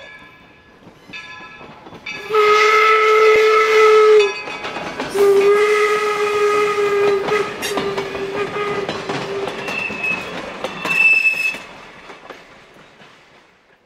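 Steam locomotive No. 17 'York' blowing two long whistle blasts for a road crossing, the second trailing off, after a few strokes of its bell. The passenger coaches then clatter past over the rail joints and fade away near the end.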